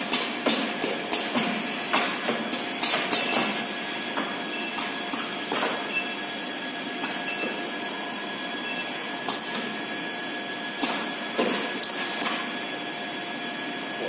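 Automatic thermocouple welding and crimping machine cycling: a quick run of sharp mechanical clacks from its pneumatic actuators, then sparser single clacks, over a steady machine hum. A few faint short beeps come in the middle.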